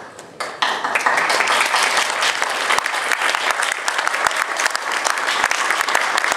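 A roomful of people applauding. A few scattered claps swell into full, steady clapping about half a second in.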